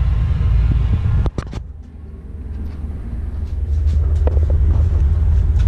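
Loud steady low rumble of noise from outside. It cuts off abruptly about a second in, with a couple of clicks, then swells back up over the next two seconds.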